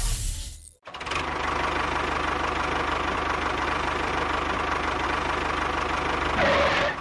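Engine idling steadily with an even, pulsing beat, cut off briefly just before a second in and then running on.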